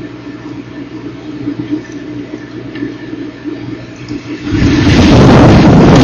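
Nest-camera microphone picking up a steady low rumble with a faint hum; about four and a half seconds in, a sudden loud rushing roar of weather noise, wind and rain on the microphone, takes over and holds steady.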